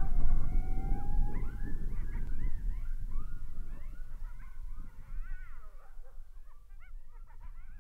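Coyotes howling and yipping together: a few long howls sliding down in pitch give way to a chorus of short, overlapping rising-and-falling yips that thins out toward the end, over a low rumble that fades.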